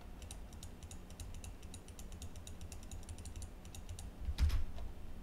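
A quick run of computer mouse clicks, one for each point placed, with one louder click about four and a half seconds in.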